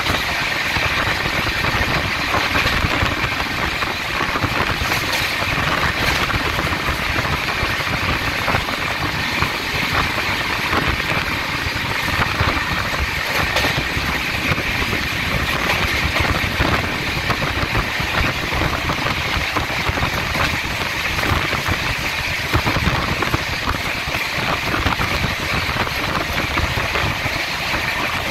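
Mumbai suburban electric local train running at speed, heard from on board: a steady, continuous rumble and rattle of the moving train.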